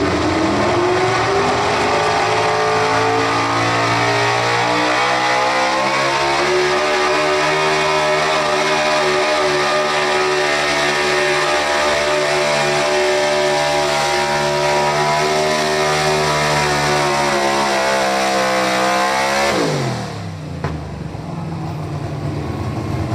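Chevrolet Silverado pulling truck's engine held at high revs under full load while it drags a weight-transfer sled. The pitch climbs over the first several seconds, stays high and steady, then drops sharply near the end as the truck comes off the throttle at the end of its pull.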